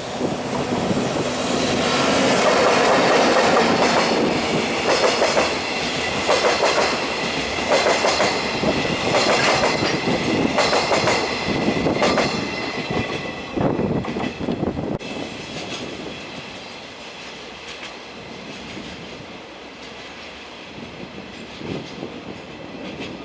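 A freight train of empty Chiki 5500 rail-transport flatcars, hauled by an EF64 electric locomotive, passes close by just after leaving the station, its wheels clacking over the rail joints. The clacking fades after about fifteen seconds as the train draws away.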